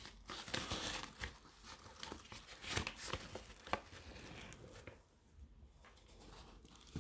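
Crinkling and rustling of a diamond painting kit's canvas and plastic wrapping being handled, with many small crackles that die down about five seconds in.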